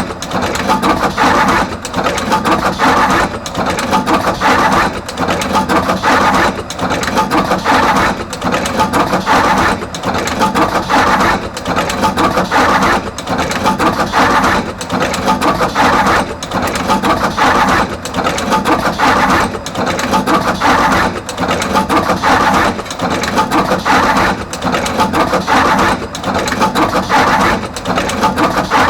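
Artos CR-22 automatic wire-processing machine running continuously, crimping terminals onto both ends of each wire. It clatters in a steady repeating cycle of about one wire every second and a half, with a brief lull between cycles.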